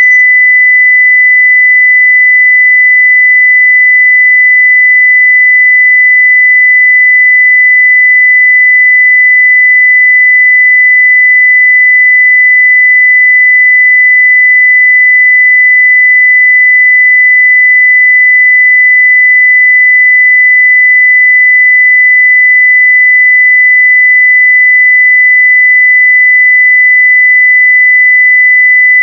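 A continuous 2 kHz sine-wave test tone at full level (0 dB), a single pure pitch held steady without change.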